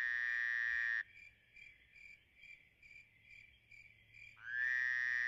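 Evening ambience of crickets chirping in an even pulse about twice a second, cut in on a silent background. Two long held tones with many overtones, each swelling up in pitch at the start, are louder than the crickets: one runs through the first second, the other starts about four and a half seconds in.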